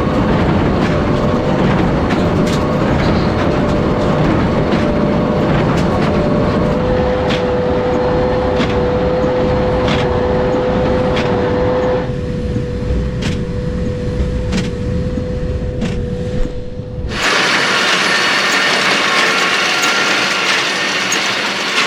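Farm tractor and baler machinery running steadily: a low engine rumble with a steady whine and regular sharp clicks. About 17 seconds in the sound changes abruptly: the rumble drops away and a hissing, rattling mechanical sound takes over.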